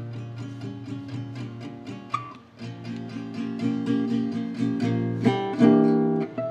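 Selmer-Maccaferri-style gypsy jazz acoustic guitar played solo: steady chord strokes at about four a second, growing louder, with heavier strummed chords near the end.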